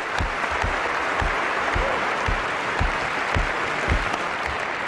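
A large hall audience applauding steadily, dense and even, easing off slightly toward the end.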